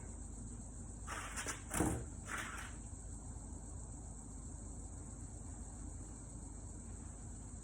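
Steady high-pitched chirring of insects in the background, with a few brief noises about one to two and a half seconds in.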